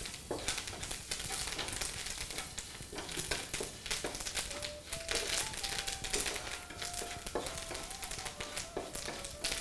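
Spices and curry leaves crackling and sizzling in hot oil in a wok while a wooden spatula scrapes and stirs them, a South Indian tempering being roasted. A faint wavering tone runs under it from about halfway through.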